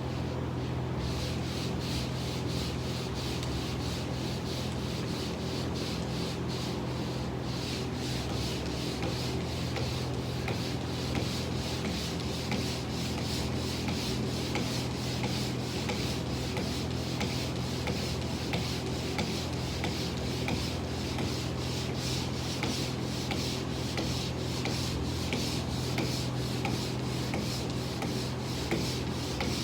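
Pole sander with sanding screen rubbed back and forth over sheetrock, a steady run of repeated scraping strokes, over a steady low hum.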